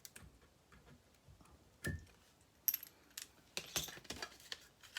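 Scattered light clicks and small metallic clinks of small jewelry parts being picked off and set into a container, with one short ringing clink about two seconds in.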